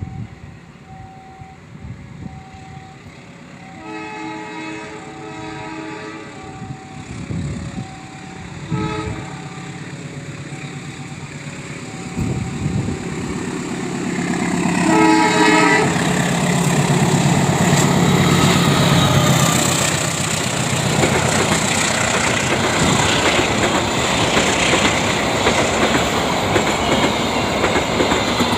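Level crossing warning alarm sounding a regular alternating two-tone signal while a diesel-hauled passenger train approaches and sounds its horn: a long blast about four seconds in, a short toot near nine seconds and another blast around fifteen seconds. The train then passes close by, its wheels clattering over the rail joints.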